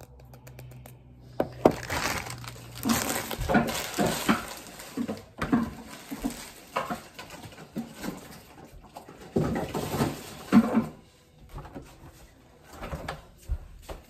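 Close, irregular handling noises of food being prepared: rustling, scraping and sharp knocks as a bagel is pulled apart and handled. The sharpest knocks come about two seconds in and again about ten seconds in, and it settles toward the end.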